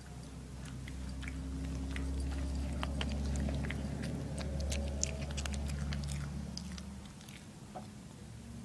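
Toy poodle crunching dry kibble from a bowl, with many quick irregular crunches and clicks of teeth on the pellets. A low steady hum runs underneath.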